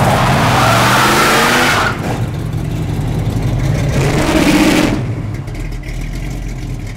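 Plymouth 'Cuda V8 muscle car revving hard, starting suddenly with a loud rush of noise and a rising engine pitch. A second rev climbs about four seconds in, then the engine drops back to a quieter, steady run near the end.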